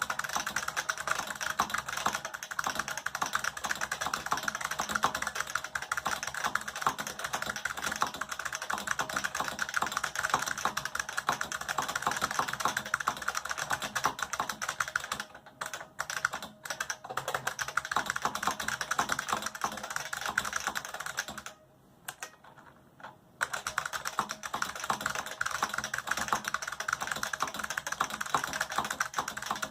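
IBM XT Model F keyboard's capacitive buckling-spring keys being typed on in a fast, dense run of clicks. The typing breaks off briefly about halfway through, and again for a couple of seconds about three-quarters of the way in.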